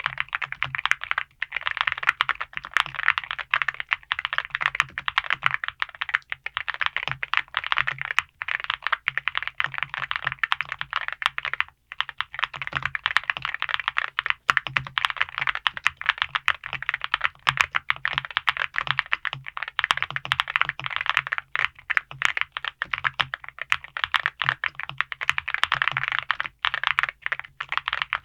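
Typing on a Cerakey Nada 65 gasket-mount mechanical keyboard with alumina ceramic keycaps and Celeste Blue linear switches: a fast, continuous stream of keystrokes, with a brief pause about twelve seconds in.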